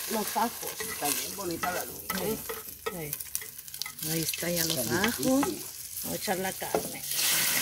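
Beef strips frying in hot fat in a clay cazuela, sizzling, with a metal slotted spoon stirring and scraping as more meat is spooned in. The sizzle grows louder and steadier about seven seconds in.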